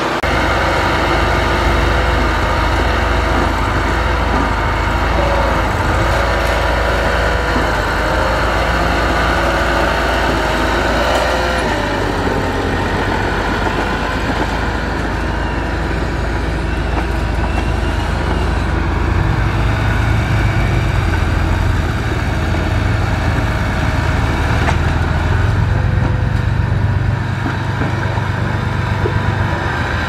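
Diesel engines of a small crawler bulldozer and a loaded dump truck running steadily, the engine note shifting a few times as the machines work.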